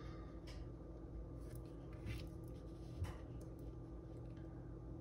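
Faint rustle of a tarot card being handled and laid on a cloth mat, with soft brushing sounds about two and three seconds in, over a faint steady hum.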